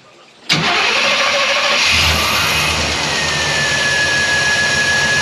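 Old Chevrolet Silverado R10's carbureted small-block V8 starting about half a second in and running steadily. It is firing again on a replacement distributor, the old distributor having been the cause of its lost spark. A steady high whine joins in about three seconds in.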